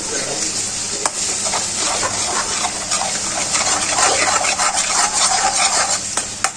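Thick tomato-onion masala sizzling and bubbling in a deep kadai, with short clicks and scrapes of a metal spatula stirring it.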